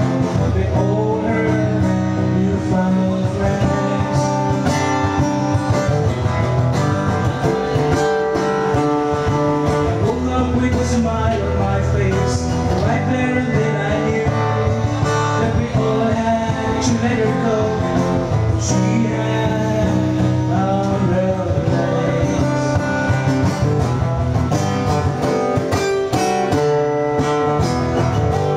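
Live music led by an acoustic guitar playing an instrumental passage of a folk ballad, with steady low bass notes under the guitar.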